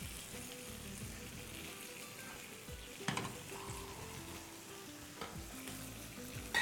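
Salmon fillets sizzling faintly in a ridged grill pan over low heat, with a couple of light knocks about three and five seconds in.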